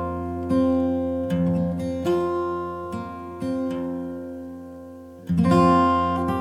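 Background music: acoustic guitar strumming slow chords, each ringing out and fading before the next.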